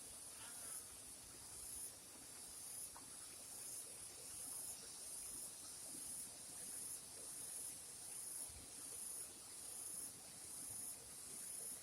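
A high-pitched insect call in a steady rhythm of pulses, a little faster than one a second, over a faint hiss.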